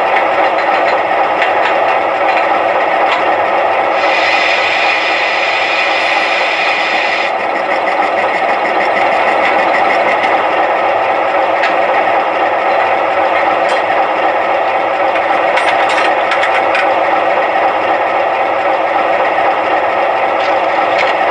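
Atlas O-scale GE 44-tonner model locomotive's onboard sound system playing a steady diesel idle while the model stands still. A hiss joins about four seconds in and stops about three seconds later.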